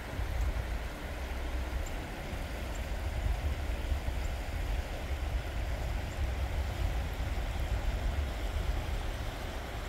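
Creek water rushing over rocks: a steady, even rush with a low rumble underneath.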